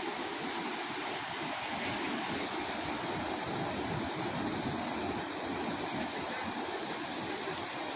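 Steady rush of ocean surf on a beach, with wind buffeting the microphone in a low, fluttering rumble.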